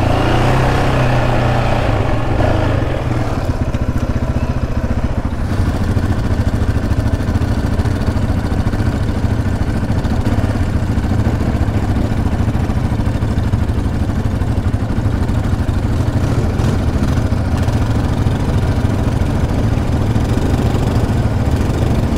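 Yamaha Raptor 700R sport quad's single-cylinder engine running steadily at low revs, close to idle, heard from the rider's seat.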